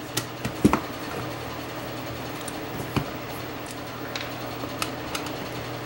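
A Phillips screwdriver backing the case screws out of a Fluke 12 multimeter's plastic back: a few scattered light clicks and taps. A steady low hum runs underneath.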